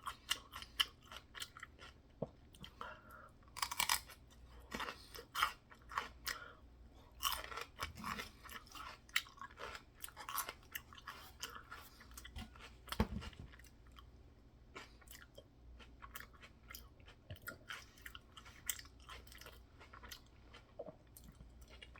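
Open-mouth chewing of a sticky food mush of peanut butter, mac and cheese, potatoes and celery: irregular wet smacks and clicks with some crunching. The smacks come thick in the first half and thin out in the second.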